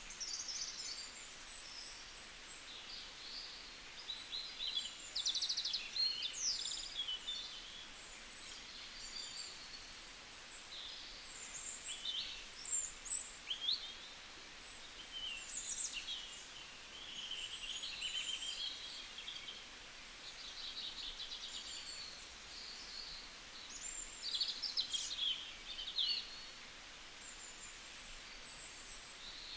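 Several small birds singing and chirping together, with short high notes, rapid trills and quick sweeps overlapping one another over a faint steady hiss.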